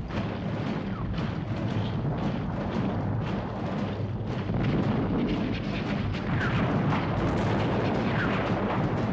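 Battle sound effects of Napoleonic-era cannon and musket fire: many shots overlapping in quick succession over a steady low din.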